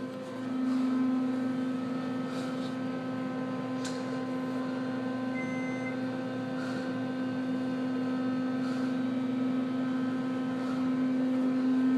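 Department-store passenger elevator travelling between floors: a steady hum from the moving car, with one short beep about five seconds in.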